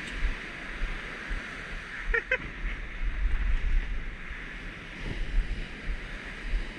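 Surf breaking and washing up a sandy beach, with wind rumbling on the microphone. About two seconds in comes a brief call of a few short pitched notes.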